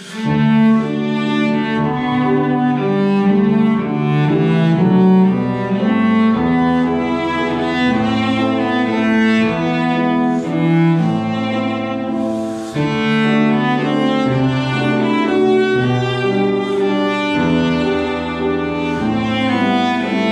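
Cello and grand piano playing together: the cello bows a sustained melody over piano accompaniment, with a brief break between phrases about two-thirds of the way through.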